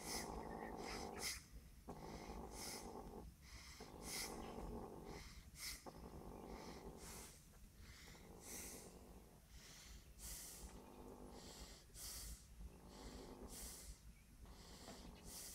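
A cat's low rumble, coming in breath-long stretches about every one and a half to two seconds with short hissy breaths between, from cats eating together at a bowl.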